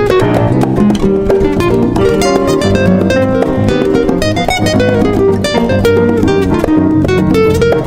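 Background music led by plucked guitar, a busy run of picked notes over a steady bass line.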